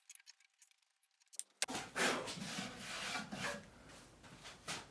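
Faint clicks, then from about a second and a half in a run of uneven scraping and rubbing strokes from hand-tool work on the bench.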